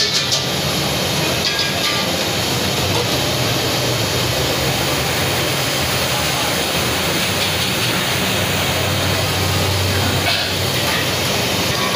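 Steady rushing noise with a low hum beneath it, typical of a busy street-food kitchen. A few light metal clinks from aluminium cooking pots come near the start, about a second and a half in, and again near the end.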